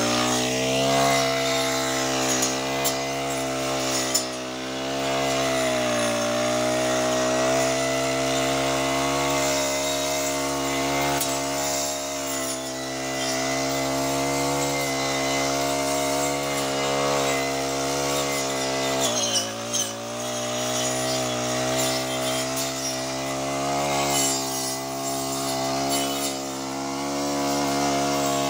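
Backpack brush cutter engine running steadily while its shaft-driven cutting head clears grass and weeds. The engine note dips briefly as it takes load, about five seconds in and again about nineteen seconds in.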